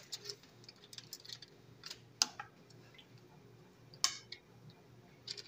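Metal kitchen tongs clicking and tapping against a ceramic bowl as sauce-coated chicken drumsticks are picked out of it. There are a few scattered sharp clicks, the loudest about two seconds in and another about four seconds in.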